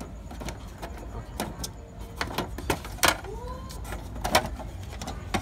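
Handling noises from an HP Color LaserJet Pro M177fw laser printer: a series of sharp plastic clicks and knocks, the loudest about three seconds and four and a half seconds in, with a brief squeak, over a steady low hum.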